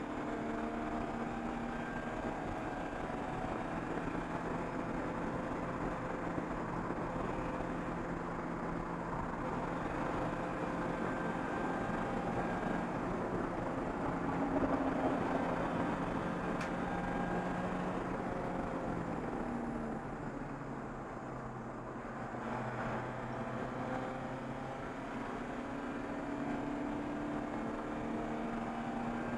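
Race car engine heard from inside the stripped, roll-caged cabin, running hard on track. Its pitch climbs slowly through the revs, with a few seconds of easing off about two-thirds of the way through before it pulls again.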